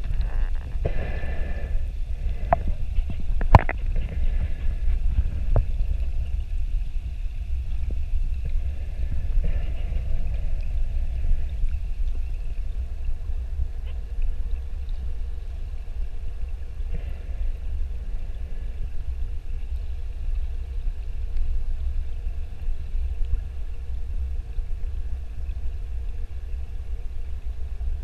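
Steady low underwater rumble picked up by a submerged camera, with a few sharp knocks in the first few seconds.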